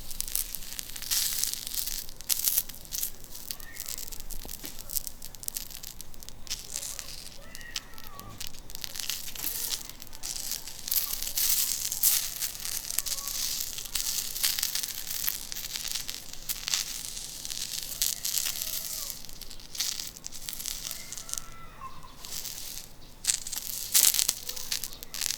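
Oil and food sizzling and crackling on a hot, extra-thick iron griddle plate being seasoned over charcoal, with irregular sharp pops and spatters.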